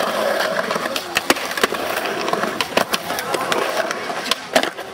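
Skateboard wheels rolling over rough concrete, with many sharp clacks and knocks of boards striking the ground, one of the loudest near the end.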